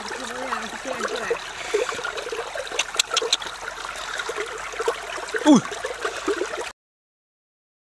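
Water trickling and gurgling steadily, with a few sharp clicks about three seconds in. The sound cuts out to silence about a second before the end.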